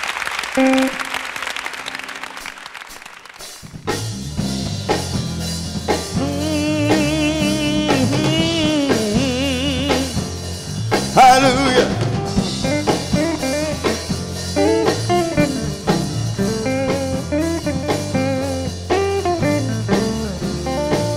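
Live gospel band playing an instrumental intro on electric guitar, bass guitar, drums and keyboard. A fading wash of sound opens it, and the full band comes in about four seconds in, with a lead line that wavers in pitch.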